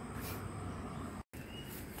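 Outdoor countryside ambience: a steady low rumble and hiss, with a few faint high chirps. It drops out to silence for an instant just past the middle.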